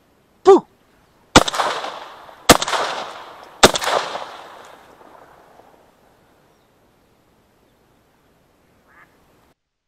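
A duck quacks once, then a shotgun fires three shots about a second apart, each echoing and dying away over a couple of seconds. A faint short call comes near the end.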